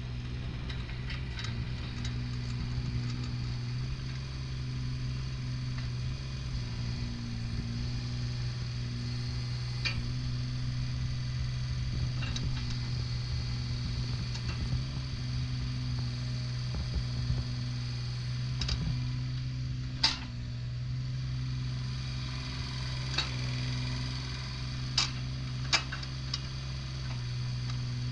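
Kubota KX016-4 mini excavator's diesel engine idling with a steady low hum. A few sharp clicks or knocks come at scattered moments.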